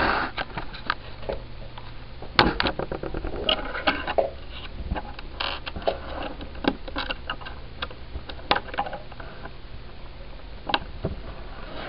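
Small Lego bricks being handled and pressed together on a hard tabletop: irregular sharp clicks and taps, with a quick run of clicks about two and a half seconds in.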